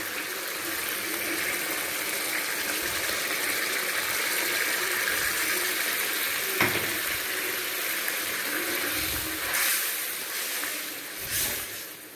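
Tamarind-and-masala gravy bubbling and sizzling in a steel kadai, a steady hiss as it comes to the boil. The steel slotted spoon clicks against the pan once about six and a half seconds in, and scrapes through the thick gravy twice near the end as it is stirred.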